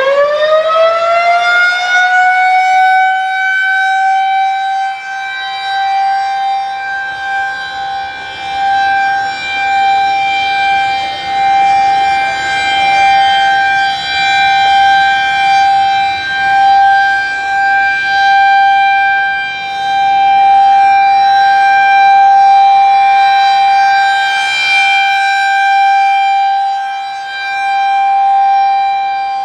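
Federal Signal 2001-SRNB outdoor warning siren sounding the Alert signal. It finishes winding up, its pitch climbing over the first couple of seconds, then holds one steady tone that swells and fades in loudness every few seconds as the rotating head sweeps round.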